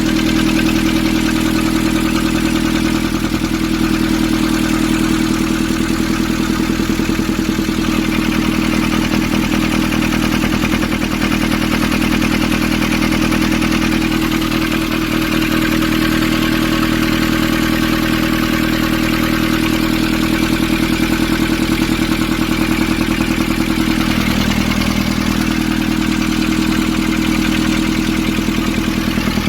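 Nissan ZD30 four-cylinder diesel engine running steadily at an even speed, with no revving.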